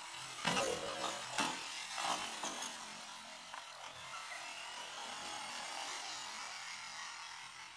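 Toy RC stunt car's small electric motors and gears whining as it drives, its rubber tyres scrubbing on concrete. There are a few sharp knocks in the first two seconds as it bumps and tilts against the wall.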